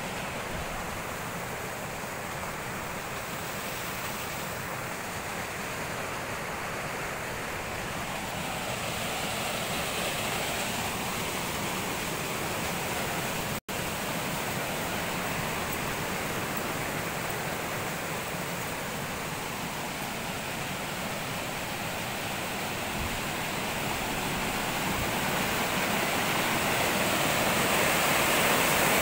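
Rushing water of a mountain stream cascading over rocks: a steady rush that grows louder toward the end, with a momentary break about halfway through.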